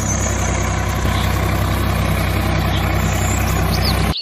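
Steady tractor engine sound, a diesel idling or running at an even pace, laid over a toy tractor, with a few bird chirps high above it. The engine sound cuts off abruptly just before the end.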